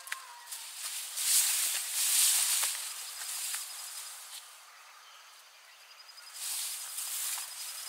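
A rustling hiss swells twice, about a second in and again near the end. In the quieter stretch between, a cricket trills faintly and evenly on one high note.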